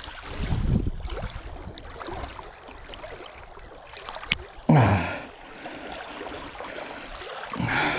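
Small waves lapping at the shoreline, with a sharp click a little after four seconds in and, just before five seconds, a loud short gasp or exhaled breath from the angler.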